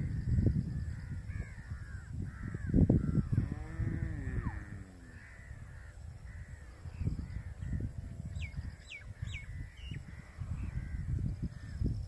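Crows cawing repeatedly over a low rumbling noise. About eight and a half seconds in, another bird gives three quick falling whistles.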